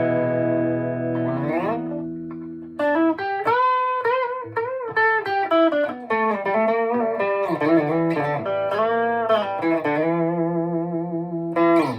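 Electric guitar played through a Boss Katana 50 MKII amp with an overdrive pedal. A held chord rings out and fades, then comes a single-note lead line with string bends, ending on a long held note with vibrato.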